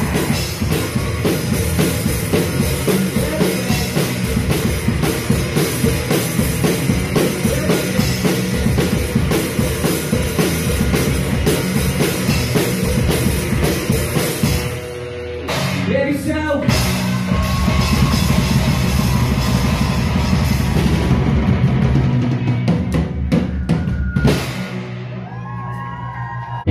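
Indie rock band playing live: drum kit, electric guitars and bass at full volume. The band breaks off briefly about halfway through and comes back in, and near the end the drums and cymbals stop, leaving guitar ringing.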